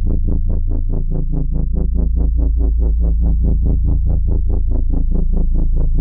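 Electronic music: a heavy bass drone under a synthesizer pulsing about eight times a second.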